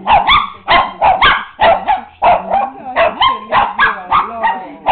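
Small dog barking rapidly and without pause, about three to four high barks a second, as it gets upset.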